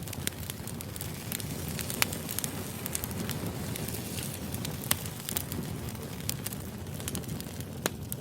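Burning firewood crackling steadily, with frequent small snaps and louder pops about two, five and eight seconds in, over a low rumble of the fire.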